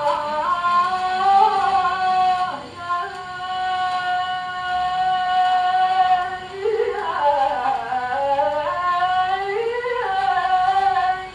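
An old 78 rpm shellac record played on a gramophone: a male hafız singing a Turkish gazel in long, ornamented held notes with slow bends in pitch, over a faint surface hiss. The singing stops suddenly near the end.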